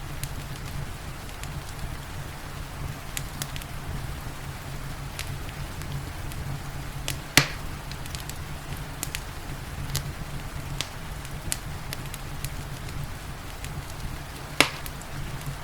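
Wood fire crackling, with scattered sharp snaps and two loud pops, one about halfway through and one near the end, over a steady low rumble and a soft hiss of rain.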